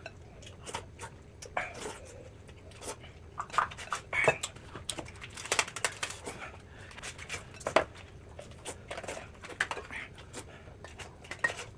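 Tableware clinking: a spoon tapping and scraping against a bowl in a scattered series of light clinks, as someone eats.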